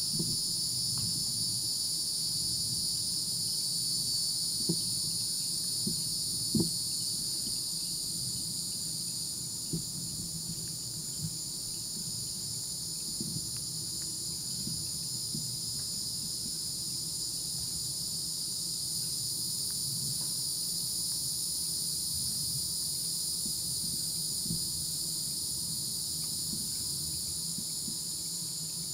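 Steady chorus of crickets and other night insects, singing in several high-pitched bands at once, with a few faint knocks standing out briefly.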